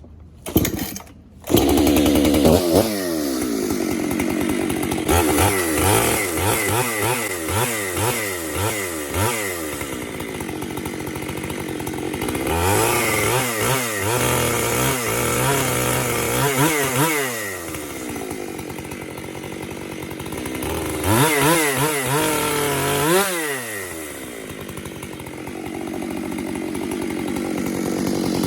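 Chainsaw starting up, then revved hard again and again, the engine pitch rising and falling, as its chain is run backwards against wood. The reversed teeth skip over the wood without biting, so the saw does not cut.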